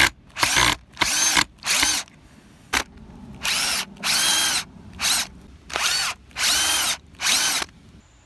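Power drill-driver driving a wood screw into a pine board in short trigger bursts: about a dozen spurts of motor whine, each rising and falling, with the screw going in without a pilot hole and splitting the board. The bursts stop shortly before the end.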